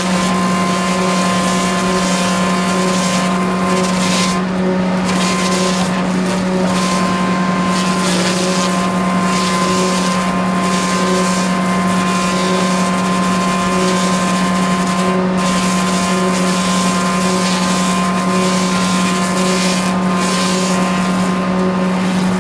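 Morbark PS8 stationary post peeler running, its electric-motor-driven cutterhead giving a steady, unchanging hum with a few fixed higher tones and a noisy hiss over it.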